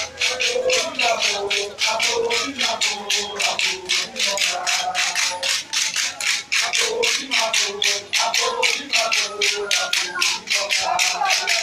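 Shaken rattles keeping a fast, steady beat of about five strokes a second, with a crowd's voices singing over it.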